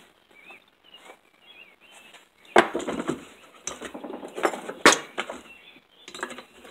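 Metal hand tools and small-engine parts clinking and clattering on a wooden workbench as the engine is taken apart, with two sharp knocks about two and a half and five seconds in.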